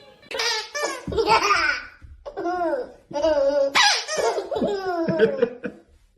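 A baby laughing hard in three bouts of belly laughter, with short breaks for breath between them.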